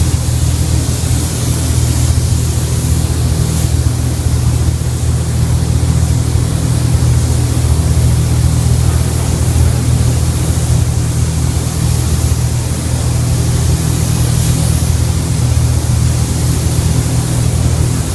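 Gravity-feed air spray gun hissing steadily as it sprays paint onto a car's fender, over a steady low hum.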